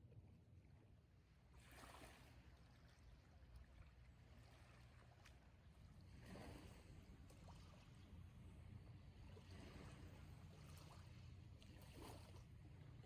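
Near silence: a faint steady low hum with a few soft hissing swells.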